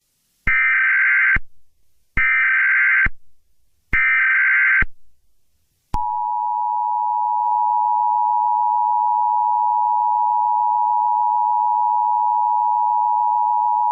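Emergency Alert System tones: three short, harsh digital header bursts (SAME data), then the two-tone attention signal, starting about six seconds in and held steady past the end.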